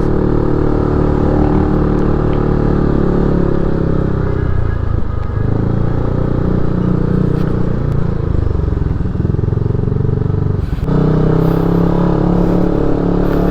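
Motorcycle engine running steadily while riding. The engine note dips and wavers a third of the way in, then changes again about four-fifths of the way through as the throttle shifts.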